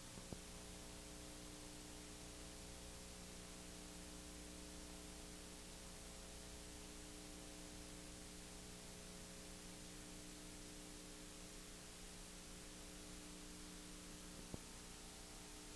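Near silence: steady hiss and electrical hum from the recording, with two faint clicks, one just after the start and one near the end.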